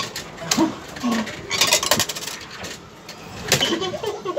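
Astra Jungle Jive fruit machine sounding off as its reels turn: short electronic bleeps and clicks in a pattern that repeats about every second and a half, with louder bursts about two seconds in and near the end.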